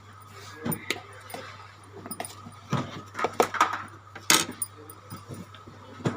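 Irregular metallic clinking and scraping in a bowl as raw potato wedges are tossed and mixed with spice powders, corn flour and oil, with the loudest clinks a little past the middle.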